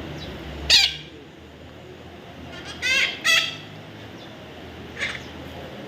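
Short, high bird calls: one about a second in, two close together around the middle, and a fainter one near the end, over a low steady hum.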